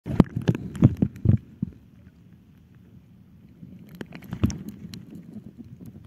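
Knocks and clicks picked up by a camera held under water, from the camera being handled and moved through the water: a quick run of knocks in the first second and a half, then scattered clicks about four seconds in.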